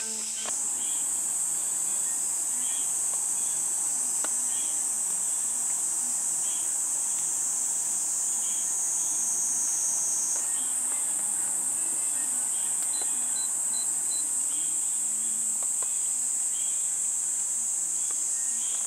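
Dense insect chorus, a loud, steady, high-pitched drone that never lets up.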